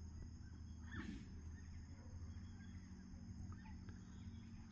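Faint outdoor evening ambience: a steady low hum and thin, steady high tones, with one short animal call about a second in.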